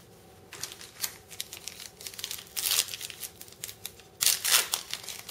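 Trading cards being handled and stacked on a tabletop: a string of short crisp clicks and rustles, with louder crinkly rustling about two and a half seconds in and again about four seconds in.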